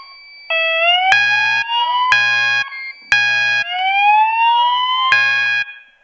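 Fire alarm system sounding: a whoop tone through a speaker rises in pitch twice, over a buzzing horn that sounds three half-second blasts about a second apart, pauses, then blasts again. This is the temporal-three evacuation pattern, with the horn circuit just reprogrammed from California coding to temporal.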